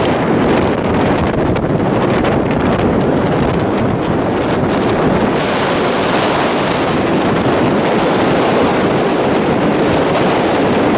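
Wind buffeting the microphone, a loud steady rushing with no pauses.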